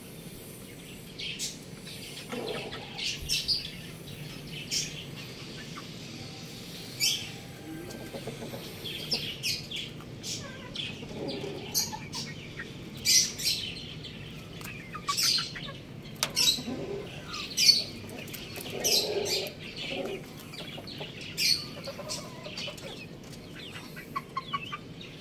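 Chickens clucking every few seconds, with frequent short high-pitched chirps in between.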